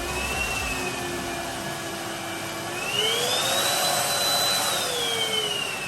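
Tefal X-Nano cordless stick vacuum's motor running with a steady whine. About three seconds in, boost mode kicks in: the whine rises in pitch and gets louder, then slides back down near the end.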